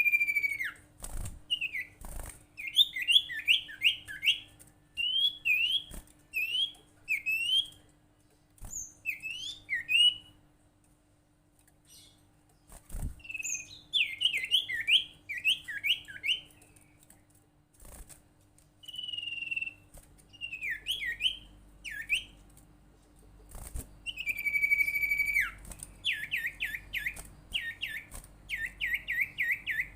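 Sirtu bird calling: bursts of quick, sharp chirps alternating with downward-sliding whistles, in phrases a few seconds long with a quiet gap of about two seconds in the middle. A few sharp clicks fall between the phrases.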